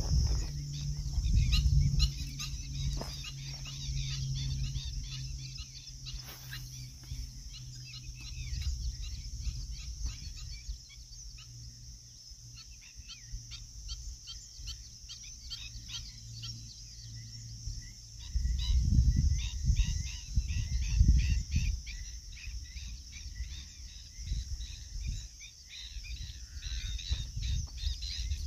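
Open-air wetland ambience: many small birds chirping over a steady high insect hiss, with wind gusting on the microphone, strongest at the start and about two-thirds of the way through. A low steady hum stops about two-thirds of the way through.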